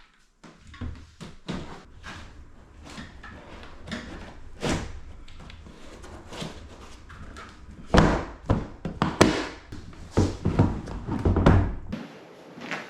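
A run of sharp clunks, knocks and thuds, like hard objects being handled and set down, with the loudest cluster of heavy thuds about two-thirds of the way through.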